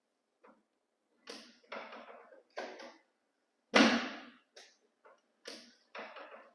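Chiropractic adjusting equipment working on the pelvis, giving a series of about eight sharp clacks with short fading tails, uneven in spacing and strength, the loudest one about halfway through.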